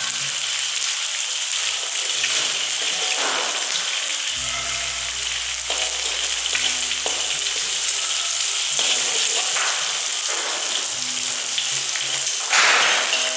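Egg frying in hot oil in an aluminium wok: a steady sizzle, with a metal spatula scraping the wok now and then. The sound is louder for a moment near the end.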